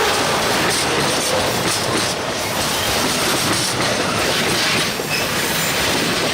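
A train running on its rails: a loud, steady rattle and rumble of wheels on track, with a few short, faint high squeals.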